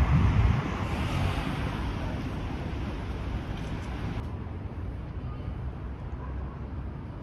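Wind buffeting a phone microphone outdoors: an uneven low rumble over a steady hiss of street ambience, the hiss thinning out about four seconds in.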